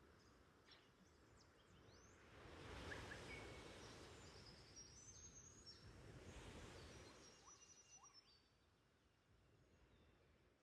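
Faint ocean waves washing in softly, two swells rising and falling, with light bird chirps over them.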